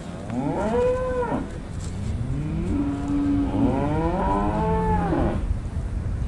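Beef cattle mooing twice: a short call about half a second in, then a longer, drawn-out moo that rises and falls in pitch from about two seconds in.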